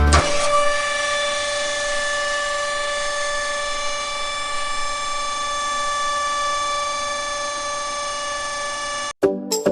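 Small electric motor running steadily with a high whine over a brushy hiss, cutting off abruptly near the end.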